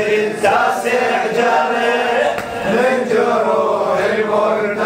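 Man chanting a Shia mourning elegy (latmiya) in Arabic into a microphone, in long, drawn-out melodic lines.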